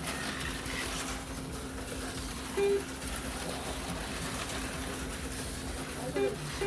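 HO-scale slot cars running around the track, a steady electric whir with a constant low hum. Short pitched blips come about two and a half seconds in and again near the end.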